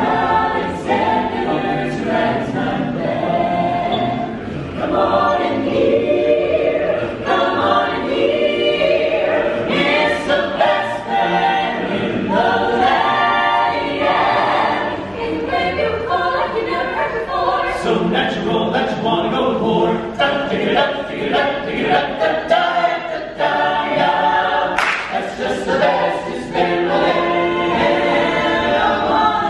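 A mixed-voice a cappella choir of men and women singing in harmony without instruments.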